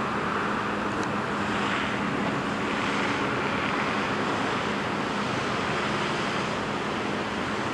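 Steady background wash of distant road traffic, an even hiss and rumble with a faint low hum and no distinct events.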